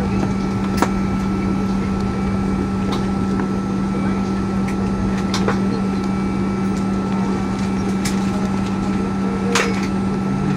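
McDonnell Douglas MD-82 jet engines running steadily at low power: a constant low hum with a fainter steady whine above it, broken by a few sharp clicks.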